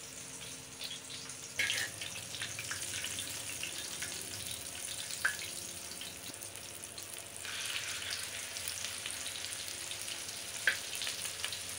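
Minced-meat chapli kebab patties shallow-frying in hot oil in a wok: a steady sizzle with fine crackling. It gets louder about a second and a half in and again about seven and a half seconds in, with a couple of short sharp clicks along the way.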